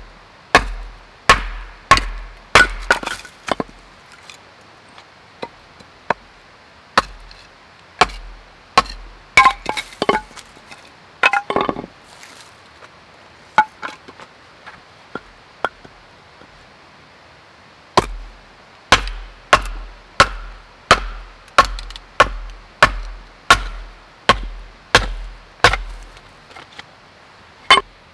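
Firewood being chopped and split on a wooden stump: sharp wooden strikes with a low thud, in runs of about one to two a second, with a quieter stretch of light taps in the middle. About eleven seconds in, a quick cluster of cracks as a piece splits.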